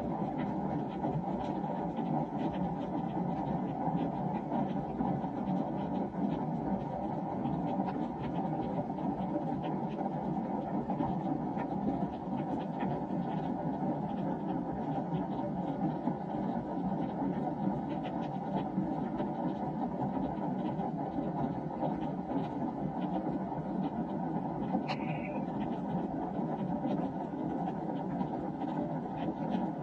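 Steady rain falling on a wooden deck: an even, low hiss with scattered faint drop ticks, and one sharp click near the end.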